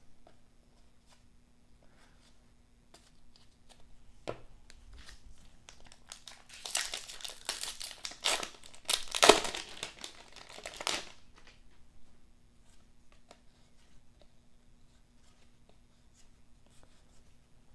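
A basketball trading-card pack wrapper being torn open and crinkled, with a burst of loud crackling from about six to eleven seconds in. Light clicks of cards being handled come before and after.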